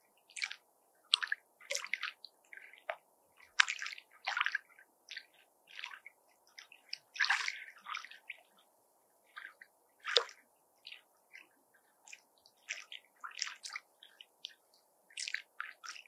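Small lake waves lapping at the shore: irregular short splashes, one every half second to a second, some louder than others, over a faint steady wash.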